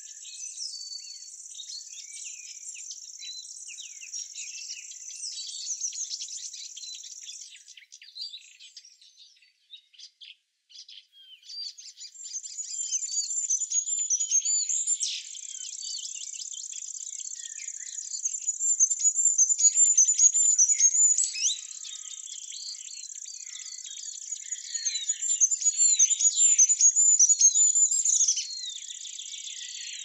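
Songbirds chirping and singing over a steady high hiss, with three louder stretches of quick, repeated high notes. The sound drops almost to silence for a few seconds about a third of the way in.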